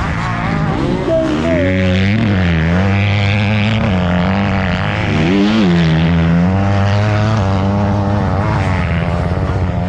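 Motocross bike engines running near idle, with throttle blips that make the pitch rise and fall twice.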